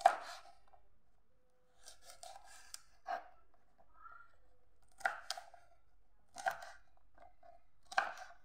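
Kitchen knife chopping through a bunch of yard-long beans onto a plastic cutting board: separate sharp cuts every second or two, about six in all.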